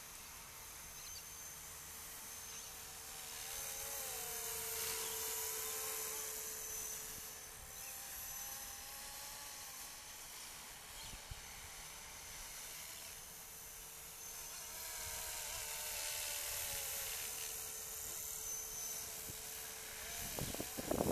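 500-size RC helicopter in flight: a steady high motor and rotor whine whose pitch wavers and glides, swelling louder twice as the model comes nearer.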